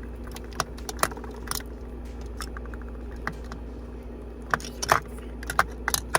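Plastic lip product tubes and crayons clicking and clattering against each other as they are set into a makeup organizer: scattered light clicks, a quick run of small ticks, and a busier cluster of louder clicks near the end. A steady low hum runs underneath.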